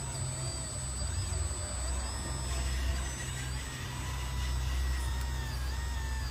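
Motorized toy excavator's electric motors whining as it swings its upper body round and lowers the boom and bucket, over a steady low hum; the whine wavers up and down in pitch.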